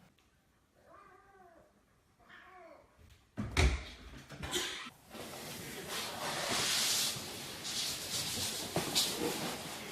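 A cat meowing twice, two short rising-and-falling calls, followed by a sudden loud thump about three and a half seconds in and then a steady, noisy hiss-like rush.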